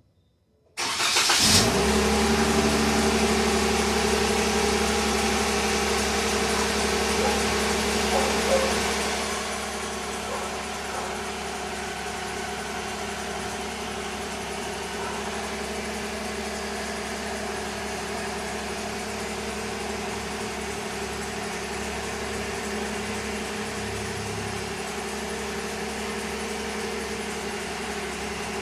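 A 2022 Jeep Wrangler Sahara's engine starting from cold, catching about a second in. It runs at a loud fast idle, then drops to a quieter steady idle about nine seconds in.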